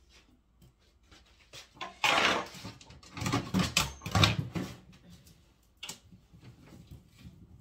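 Things being rummaged through low in a kitchen cabinet. There is a burst of rustling about two seconds in, more rustling and knocking over the next couple of seconds, and a sharp click near the end.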